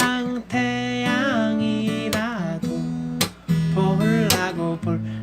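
A song: a voice singing in Korean over strummed acoustic guitar chords.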